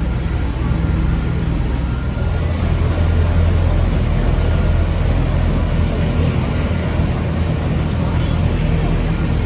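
A motor vehicle engine running steadily with a deep, loud low hum over a wash of traffic noise.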